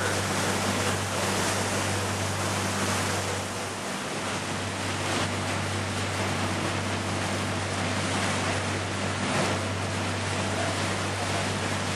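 Tour boat under way: a steady, low engine drone with wind and water rushing past the hull.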